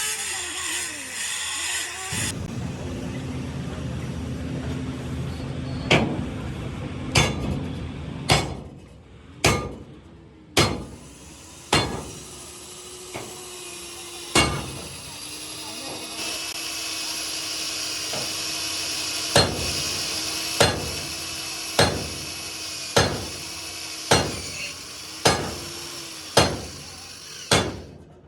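Hammer blows on metal during truck body repair, struck one at a time at about one a second, with a pause of a few seconds in the middle. Steady workshop noise runs for the first few seconds before the blows begin.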